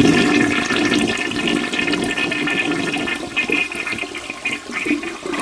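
Toilet flushing: rushing, swirling water in the bowl, loudest at the start and easing off a little toward the end.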